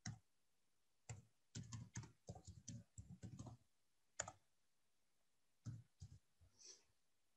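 Faint keystrokes on a computer keyboard: a quick run of key taps starting about a second in, then a few scattered single taps.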